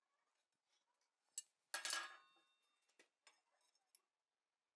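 Steel blacksmithing tools clinking against the anvil and scroll jig as a hot bar is bent into a scroll: a sharp click, then a louder clang that rings for about half a second, then a few lighter clinks.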